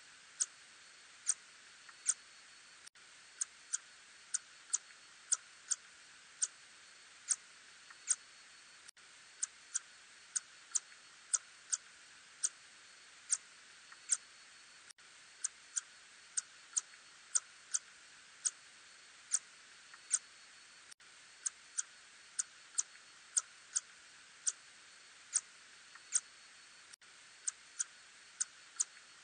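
Little tube-nosed bat (Murina ussuriensis) calls: short, sharp clicks at an uneven pace of about one or two a second, over a steady hiss.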